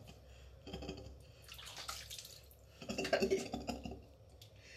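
Water splashing and dripping in irregular bursts as a wet kitten is washed by hand over a plastic basin.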